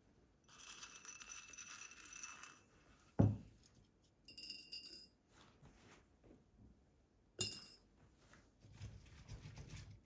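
Glassware being handled in a kitchen: a stretch of glass scraping with a faint ring, a dull thump about three seconds in, light clinks, then a sharp ringing glass clink about seven seconds in.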